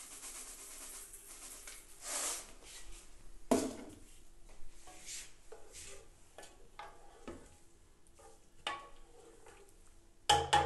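Sugar poured into a large aluminium pot of milky carrot gajrela, then a spoon stirring through it, knocking sharply against the metal pot several times.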